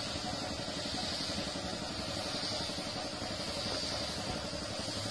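Compressed-air spray gun hissing steadily as it sprays duco paint onto a wooden furniture panel, over a steady motor drone.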